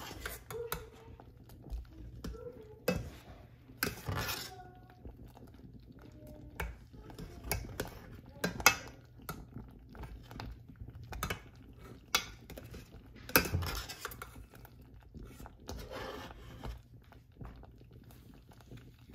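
Metal slotted spoon scraping and knocking irregularly against a stainless steel pot while stirring a thick milk pudding, with a few louder clanks.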